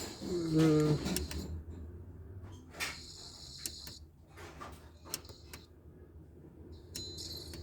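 A short creak about half a second in, then a few light clicks and taps from handling the removed car radio and its wiring, over a faint steady high-pitched hiss.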